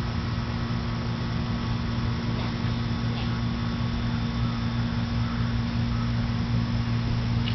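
A steady low hum with a constant hiss beneath it, unchanging throughout, with no distinct knocks or calls.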